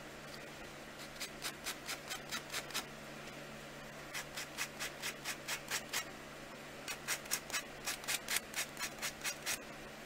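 A worn drywall sanding block rubbed in quick short strokes over a baked polymer clay pendant, sanding gold mica paint off its raised detail. The strokes come in three runs of about four a second, with pauses between.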